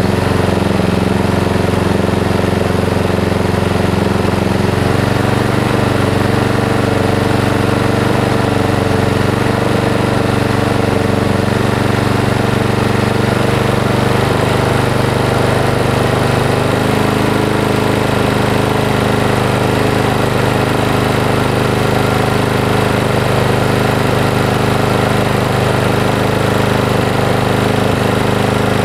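Honda lawn mower's four-stroke single-cylinder engine running steadily after an oil change, circulating the fresh oil. Its note shifts slightly a few times.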